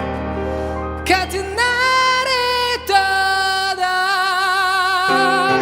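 A male singer holds long, high wordless notes over keyboard chords, the last one sustained with a wide vibrato; the accompaniment falls away near the end.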